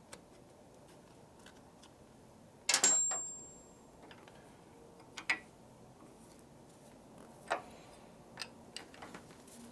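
Metal hand tools clinking while a hose clamp is worked off an oil line fitting on an engine. There is one sharp metallic clank with a brief ringing about three seconds in, then scattered light clicks and taps.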